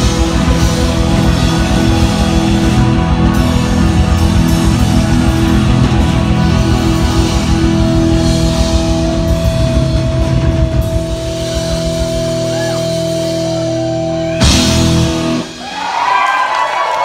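Live rock band of electric guitars, bass and drum kit playing loudly. About twelve seconds in the beat drops out, leaving held guitar chords and a long sustained note. A final crash ends the song about two seconds later, and the crowd cheers.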